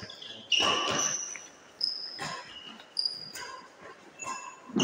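Badminton rally: several sharp smacks of rackets hitting the shuttlecock, mixed with short high-pitched squeaks of shoes on the court floor.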